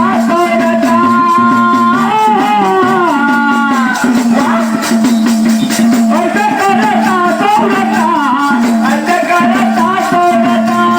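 Devotional song to Mahadev (Shiva): a wavering sung melody over a steady held drone note, with shaken rattle percussion keeping time.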